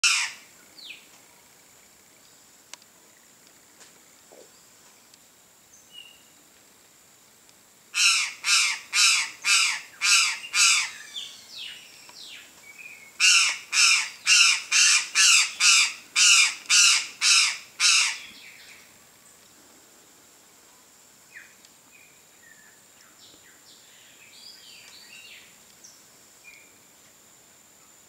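Chestnut-eared aracari calling in two series of loud, evenly repeated calls, about two a second. The first series comes about eight seconds in and lasts some three seconds; the second follows a few seconds later and lasts about five seconds. Faint short chirps from smaller birds come later.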